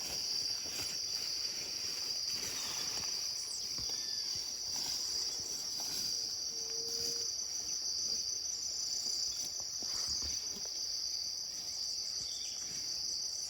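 Steady, high-pitched drone of rainforest insects, with a few faint bird chirps and one short, low, level note about halfway through.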